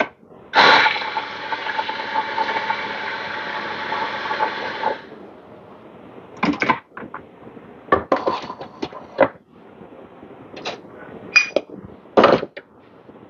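Coffee grinder motor running for about four seconds, then a string of sharp knocks and clicks from the portafilter being handled and locked into the espresso machine's group head.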